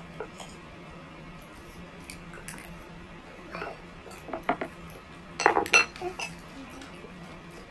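Metal spoon and fork clinking and scraping against a plate while eating: scattered sharp clicks, the loudest a quick pair a little past halfway.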